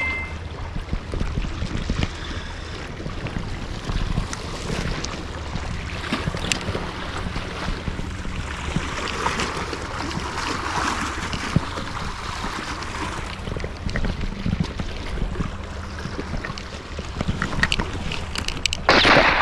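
Wind on the microphone and waves washing over the rocks at the shore, over a steady low hum, with a short loud rush of noise near the end.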